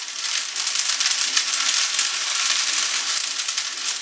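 Chow mein noodles and vegetables sizzling in a pan as they stir-fry over medium heat, a steady crackling hiss.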